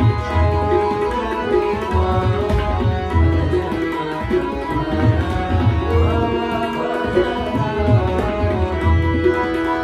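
Tabla and harmonium accompanying a male voice singing a devotional bhajan. The tabla keeps a steady rhythm with deep, booming bass-drum strokes under the held harmonium chords.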